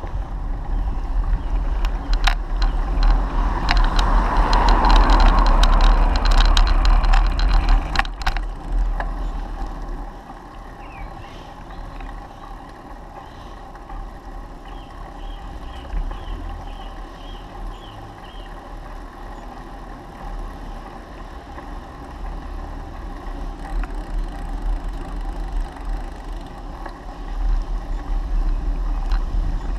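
Wind buffeting and road rumble picked up by a handlebar-mounted camera on a moving bicycle: a steady low rumble with a rushing noise over it. The noise is loudest for the first several seconds, swelling about four to seven seconds in, then settles quieter as the ride continues on smooth park paths.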